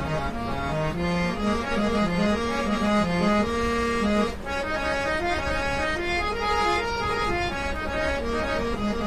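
Portable two-reed-set harmonium with seven-fold bellows, made by The Sa Re Ga Ma Company of Kolkata, being played: a melody of held reedy notes over moving lower notes, with a brief dip in loudness about four seconds in. It is a sound-quality test of the new instrument.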